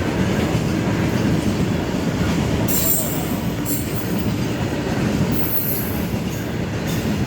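Long freight train's wagons rolling past with a steady rumble. Short high squeals from the wheels come in several times, about three seconds in and again in the second half.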